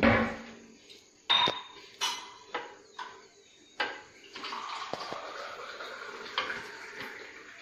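Cooking utensils knocking and clinking against a non-stick dosa pan: several separate sharp knocks and metallic clinks, then a steady hiss from about halfway through.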